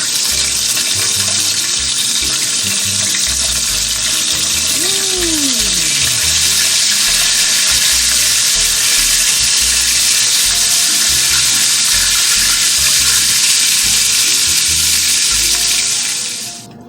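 Catfish croquettes sizzling in hot frying oil: a loud, steady hiss that cuts off suddenly near the end.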